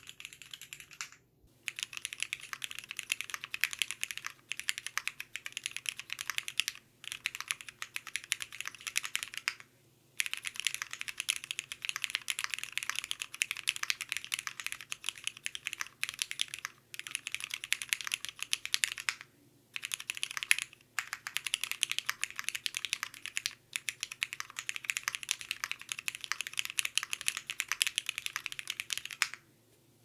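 Fast typing on a Monsgeek M1W mechanical keyboard built with no foam, a tape mod, a PC plate, ABS keycaps and lubed Cherry MX Hyperglide Black linear switches: a dense run of key clacks in bursts, broken by several brief pauses. It stops shortly before the end.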